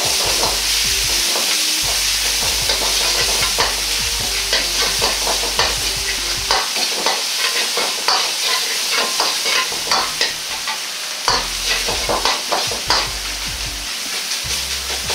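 Ground pork sizzling as it is stir-fried in a wok, with the metal ladle scraping and clacking against the pan many times. The meat is being fried through until it turns fully white.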